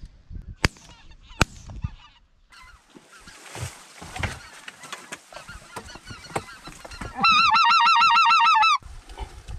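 A goose call blown close to the microphone: a loud, rapid run of about ten quick wavering notes lasting under two seconds, starting about seven seconds in. Before it come a couple of sharp clicks and fainter calling from geese flying overhead.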